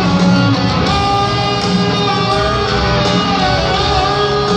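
Live rock band playing loud, an electric guitar lead carrying a sustained, wavering melody over the band.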